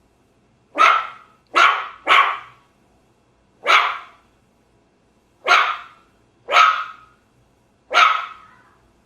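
A dog barking: seven sharp, separate barks at uneven intervals, three of them in quick succession near the start.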